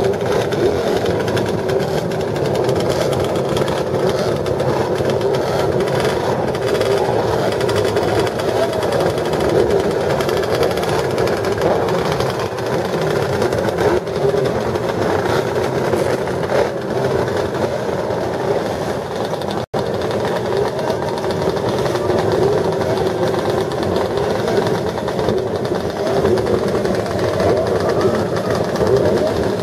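Several classic racing motorcycle engines running together on a start grid, their pitch rising and falling as riders blip the throttles.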